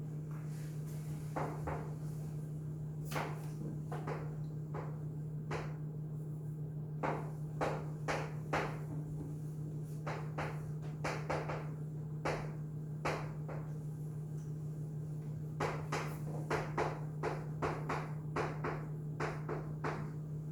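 Irregular short taps and clicks of writing: a marker or chalk striking a writing surface in quick clusters, with pauses between. A steady low electrical hum runs underneath.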